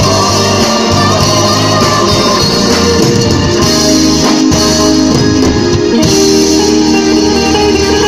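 Live band playing loud through a PA: electric guitars over bass and drum kit, an instrumental passage with guitar to the fore.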